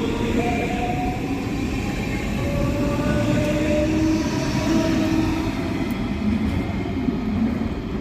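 Electric train moving at the station platform: a steady rumble of wheels on rail, overlaid with humming motor tones that change pitch in steps.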